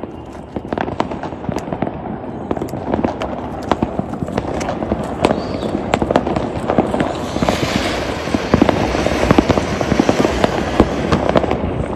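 Firecrackers going off in rapid succession: a dense, irregular crackle of sharp pops that grows thicker and louder, with added hiss from a little past halfway.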